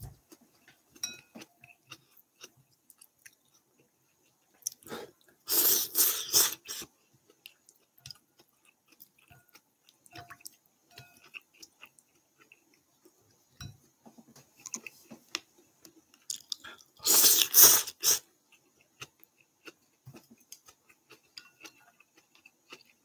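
A person eating ramen: two loud slurps of noodles, one about five seconds in and one near the end, each lasting about a second, with quiet chewing in between.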